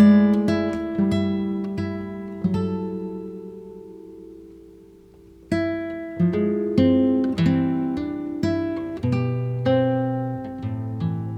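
Music played on an acoustic guitar: a melody of plucked notes, each ringing and fading. About two and a half seconds in a chord is left to ring out and dies away, and the picking starts again about five and a half seconds in.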